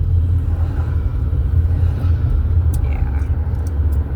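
Steady low rumble of a truck on the move, heard from inside the cabin.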